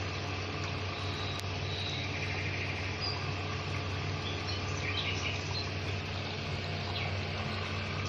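Small AC water pump of a homemade tabletop fountain running with a steady low hum, water trickling down between the pots. Birds chirp faintly a few times.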